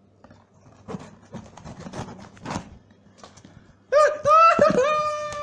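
Gift wrapping rustling and tearing as a present is unwrapped by hand, followed about four seconds in by a loud, drawn-out, high-pitched squeal from a woman.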